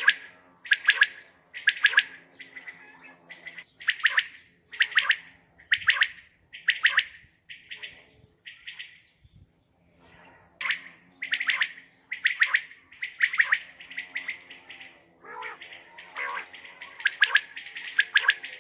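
Common quail calling over and over: short, sharp, high call notes in rapid bursts, about one burst a second, with a brief pause a little past the middle.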